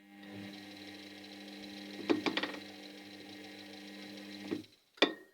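Washing machine motor turning the drum at low speed with a steady hum, a quick run of knocks about two seconds in, then stopping, followed by one sharp click. The uploader reports knocking and squeaking at low revs, a fault in the machine.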